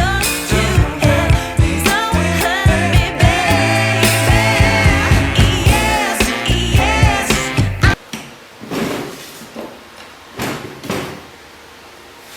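Background pop song with sung vocals and a steady beat that cuts off suddenly about eight seconds in. A few short rubbing or scraping sounds follow at a much lower level.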